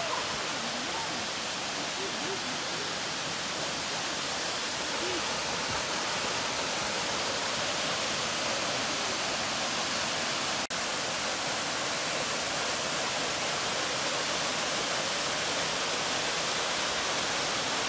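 Steady rushing hiss of a waterfall pouring down a rocky cliff, with a momentary dropout about two-thirds of the way through.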